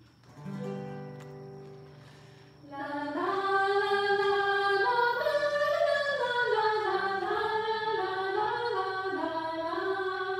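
A strummed chord on acoustic guitars rings out and fades, then about two and a half seconds in, voices start singing a slow hymn melody with guitar accompaniment.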